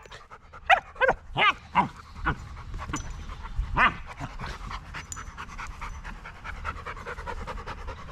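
Dogs at play: several short, high yelping whines in the first two seconds and one more near four seconds, then fast, steady panting.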